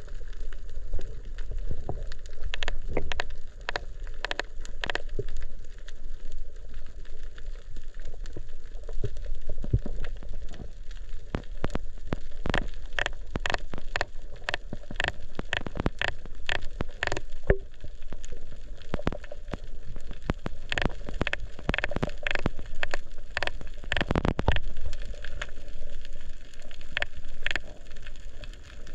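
Underwater crackle of snapping shrimp on a coral reef: dense, irregular sharp clicks, busiest in the second half, over a low rumble of water against the camera housing.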